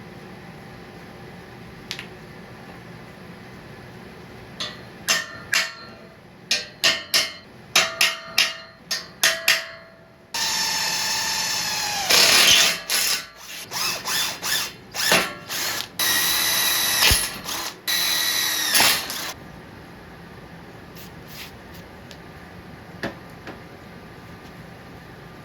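A handheld electric power tool's motor whining in a string of short trigger pulses, then running in several longer stretches with its pitch dropping as it comes under load and winding down each time it is released.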